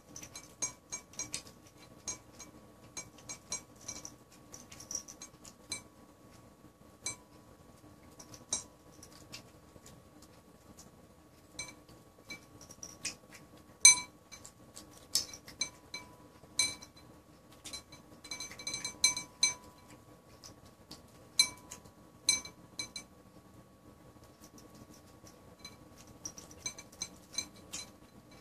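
Siamese cat eating tuna from a ceramic bowl: irregular light clinks against the bowl, some with a short ring, with one loud clink about halfway through and a quick run of clinks a little later.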